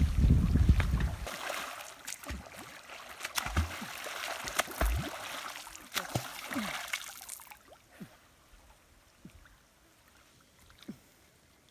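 Water trickling and splashing with many small clicks and bubbling sounds, after a low rumble of wind on the microphone in the first second. It fades to near silence after about seven and a half seconds.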